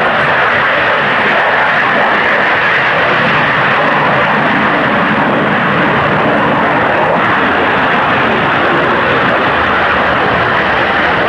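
BAC One-Eleven jet airliner flying past, its rear-mounted Rolls-Royce Spey turbofan engines giving a loud, steady jet noise.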